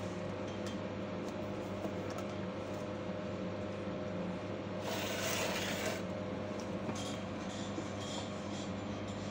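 Steady drone of a ship's engine and machinery heard aboard, with a brief burst of hiss lasting about a second, about five seconds in.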